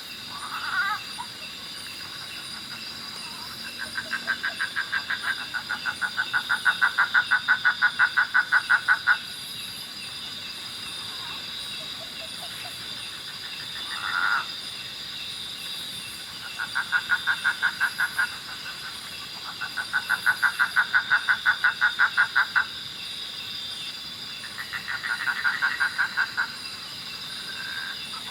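A frog calling at night in repeated rapid pulsed trills of about nine notes a second, each trill lasting a few seconds, over a steady high drone of night insects.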